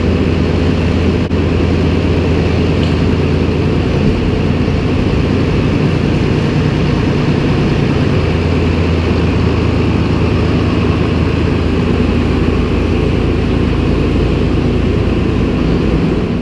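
Tractor engine running steadily with a low, even drone.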